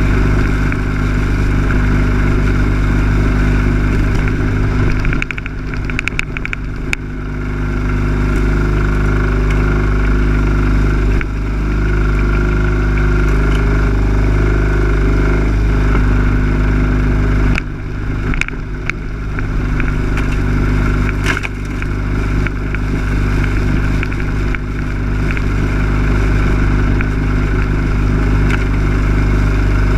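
Lawn mower engine running steadily, picked up close from the machine itself. Its level dips briefly, with a few rattling clicks, about five to seven seconds in and again around eighteen seconds.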